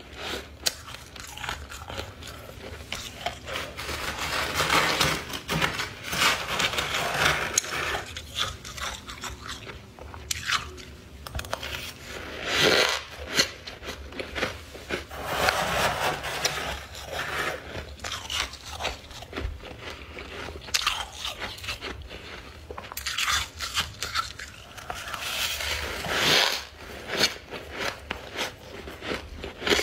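Ice being bitten and chewed close to the microphone: humidifier frost and chunks of clear ice crunching, with some scraping of ice against ice. Bursts of crunching come and go with short lulls between them.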